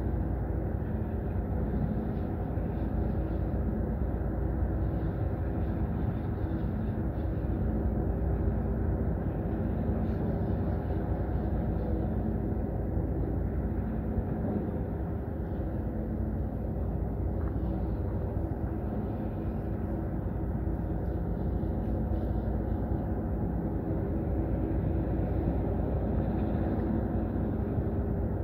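A ship's engine running steadily: a low, even hum with a constant pitch that does not rise or fall.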